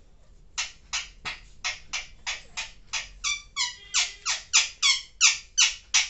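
Alexandrine parakeet giving a rapid series of short, high calls, about three a second, each falling in pitch, growing louder toward the end.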